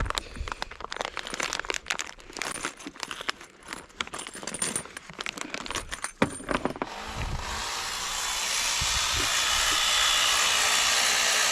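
Metal tools clinking and rattling against each other, then about seven seconds in a power impact gun starts and runs steadily, spinning out an already-loosened exhaust bolt.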